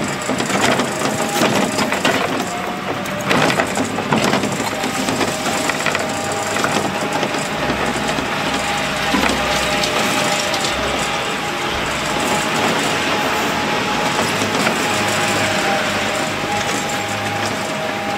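Old-timer ride car running along its guide rail, its motor humming steadily under rattles and knocks from the car, which are thickest in the first few seconds.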